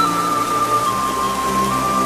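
Background music: a slow, held flute-like melody over a steady hiss of rain.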